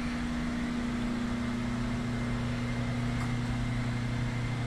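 Greenhouse ventilation fan running: a steady low hum over an even hiss.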